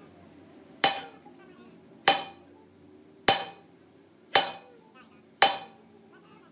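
Hammer blows on metal: five sharp strikes about a second apart, each ringing briefly.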